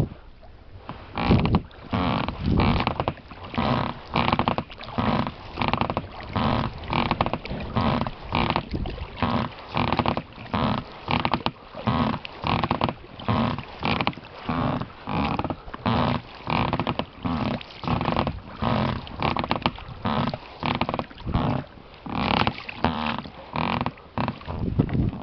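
Rowing an inflatable boat: the oars and their rubber oarlocks creak with every stroke in a steady rhythm, about one and a half creaks a second.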